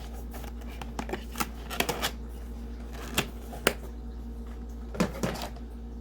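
Irregular clicks and light knocks of hands handling a mechanical keyboard and its box contents, about nine in all, over a steady low hum.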